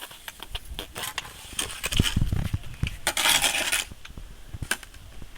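Scattered light clinks and knocks of hard objects, heavier around two seconds in, then a scraping rush lasting about a second.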